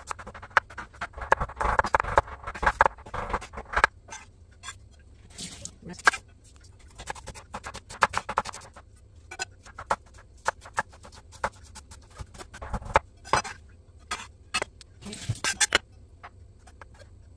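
Kitchen knife chopping on a wooden cutting board: quick, closely spaced knocks in the first few seconds while mincing ginger, then slower, spaced cuts through red onion and chilies.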